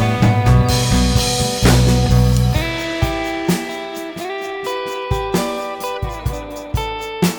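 Background music: guitar-led instrumental with drums.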